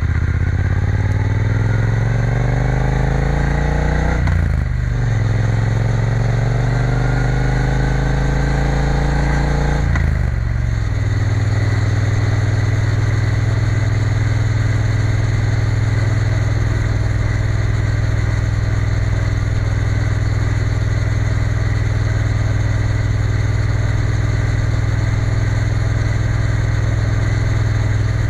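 Triumph Bonneville T120's parallel-twin engine, heard from the bike while riding. The engine note climbs, drops at an upshift about four seconds in, and climbs again. About ten seconds in it drops once more and then holds a steady note as the bike cruises.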